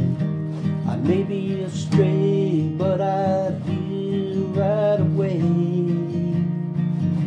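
Music: a strummed acoustic guitar, with a wavering melody held with vibrato over it.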